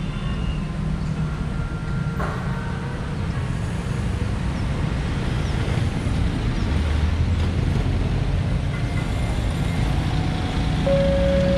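Road traffic driving over a railway level crossing: cars, minivans and motorcycles passing with a steady low engine rumble. Near the end a steady pitched tone starts.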